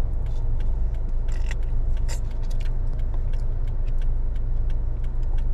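Steady low rumble of a car's idling engine heard from inside the cabin, with scattered small clicks and crinkles of plastic rice-pudding cups and lids being handled and eaten from.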